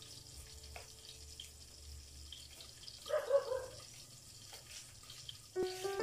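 Liquid poured from a small plastic bottle into a pot, with a short louder gurgle about three seconds in. Background music comes in near the end.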